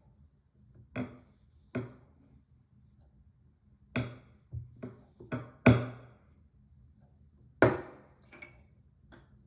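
About ten sharp, irregular knocks and clacks of a clay roller and plastic shape cutters striking and being set down on a wooden tabletop. The loudest come a little past the middle and again about three quarters through.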